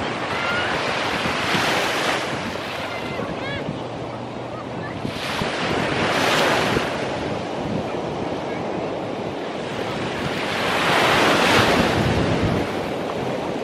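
Sea waves breaking on a beach, with three waves surging in about 2, 6 and 11 seconds in; the last is the loudest. Wind buffets the microphone.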